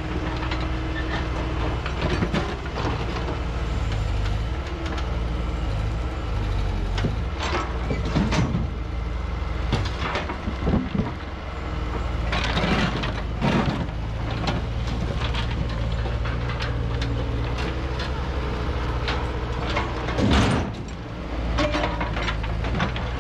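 Diesel engines of a Bobcat mini excavator and a Bobcat T190 compact track loader running steadily while they break up and move concrete driveway slabs, with repeated clanks and scrapes of steel buckets on concrete, the loudest near the end.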